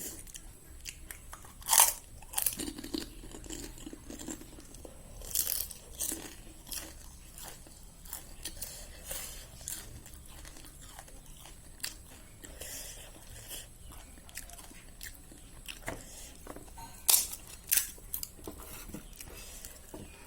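Crisp golgappa (pani puri) shells bitten and chewed close to the microphone. Loud crunches come about two seconds in, around five seconds, and again near the end, with softer chewing clicks between them.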